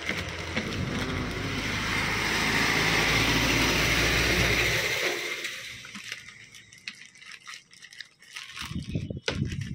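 A passing vehicle's engine and tyre noise swells and then fades over the first five seconds or so. After that a thin plastic bag crinkles and rustles with short crackles as it is handled and pulled open.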